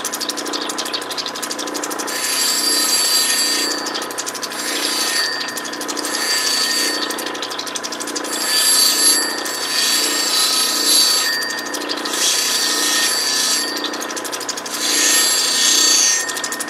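Lapidary grinding wheel running with a steady whine while an opal is pressed against it in repeated passes, each pass bringing a louder hissing grind that lasts a second or two before the stone is lifted off.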